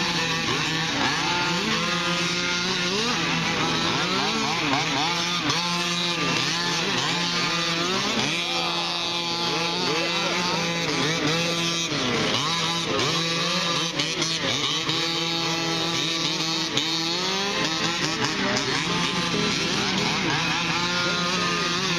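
Several 1/5-scale gas RC cars' small two-stroke engines racing, their pitches rising and falling over one another as the drivers work the throttles.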